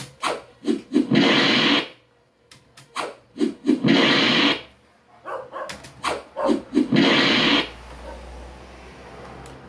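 A short run of sound effects played back three times in a row, each pass a few quick hits followed by a loud hissing burst under a second long. Near the end a faint low hum remains.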